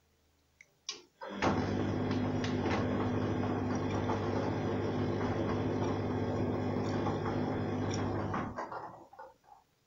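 Arçelik 3340SJ front-loading washing machine in a wash tumble. After a couple of clicks, the drum motor starts with a steady hum, turning the wet load in the drum for about seven seconds. The motor then stops and the drum settles with a few soft knocks.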